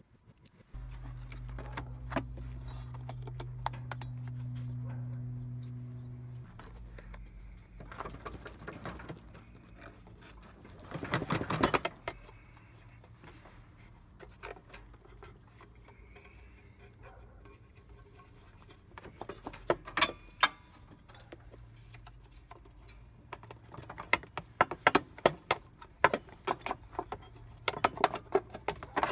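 The drive belt cover of a Honda Elite 250 scooter being worked loose and pulled off by hand: scattered clicks, knocks and rattles that come thick and fast in the last ten seconds. A steady low hum runs through the first few seconds, and a short loud rustle comes about eleven seconds in.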